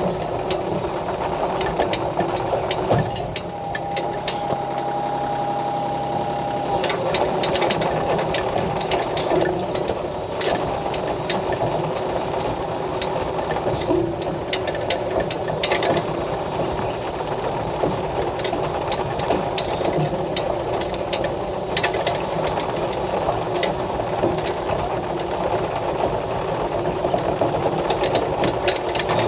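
Excavator's diesel engine running as the machine travels, with frequent irregular clanks and rattles. A steady whine sounds for about three seconds a few seconds in.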